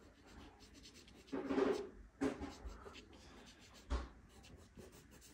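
Nupastel hard pastel stick scratching on pastel paper in a run of short strokes, with a brief knock about four seconds in.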